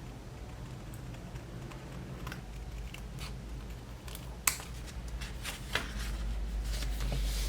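A scattering of small clicks and taps, two of them sharper about halfway through, over a steady low hum.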